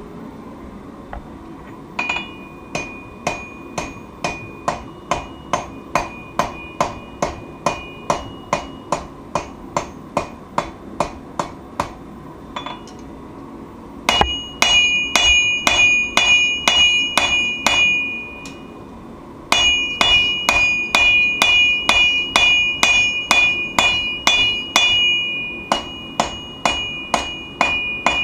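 Forging hammer blows on an anvil in steady runs of about three strikes a second, each blow ringing with a high metallic tone. A lighter run comes first, then two louder runs with a short pause between them, over a steady rushing noise.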